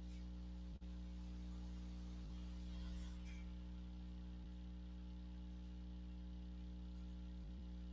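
Steady electrical mains hum with a stack of evenly spaced overtones. It drops out for an instant a little under a second in, and a faint rustle is heard about three seconds in.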